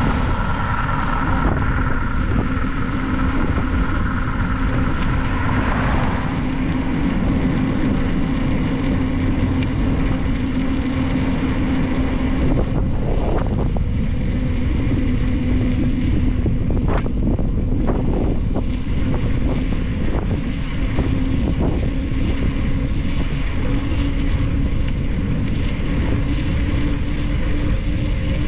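Wind buffeting the microphone of a camera on a bicycle coasting downhill on asphalt, a steady rushing noise with a low hum under it that rises slightly in pitch near the end. A few faint knocks come around the middle.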